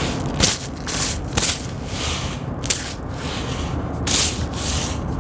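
Fingers scraping and crumbling a dry, cracked crust of sand-cement: about half a dozen short, gritty crunches.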